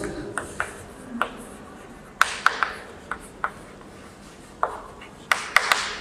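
Chalk writing on a blackboard: a dozen or so sharp taps as the chalk strikes the board, some followed by short scratchy strokes, at irregular intervals, with a quick cluster near the end.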